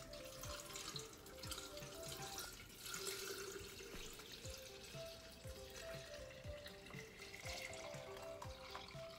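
Sorrel drink poured in a steady stream from a jar into a glass pitcher of sangria and sliced fruit, a faint running, splashing liquid sound that is strongest about three seconds in. Background music with a steady beat plays underneath.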